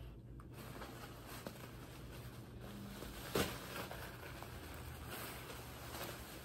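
Quiet rustling and handling noise as a faux-fur fursuit tail is lifted out of its packaging, with one short knock about three and a half seconds in.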